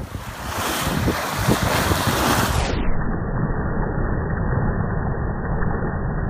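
Wind buffeting the microphone over water rushing and splashing along the hull of a sailing yacht under way in choppy sea.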